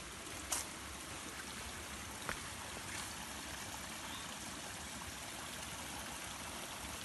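Small stream running and trickling over rocks: a steady rush of water. Two sharp clicks stand out, about half a second in and again a little after two seconds.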